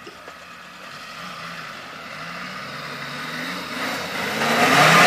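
Suzuki Samurai 4x4's engine pulling under load as it climbs a dirt mound, growing steadily louder as it comes closer and becoming loudest and harsher near the end.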